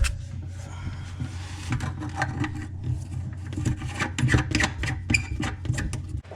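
Irregular clicks, rubbing and scraping of a new bathroom faucet and its fittings being handled and worked into place, over a steady low hum.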